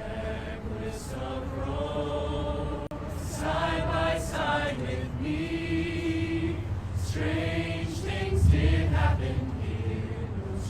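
Voices singing in long held notes that change pitch every second or two, over a steady low rumble of street noise.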